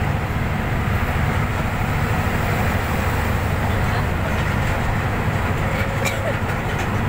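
A vehicle driving at highway speed: a steady, loud low rumble of engine, tyres and wind.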